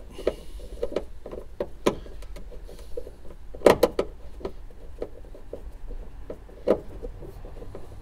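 A hand screwdriver slowly undoing a screw in plastic car interior trim, with irregular small clicks and knocks as the tool works; the loudest knock comes about halfway through.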